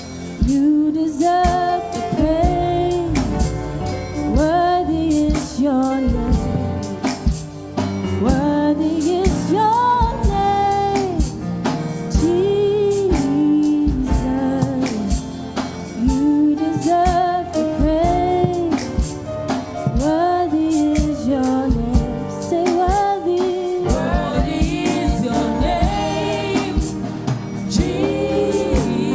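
Gospel praise music: singing over a band with a steady drum beat.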